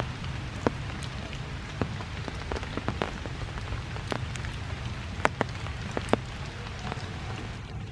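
Steady rain falling, with single heavy drops hitting sharply at irregular moments, roughly every second.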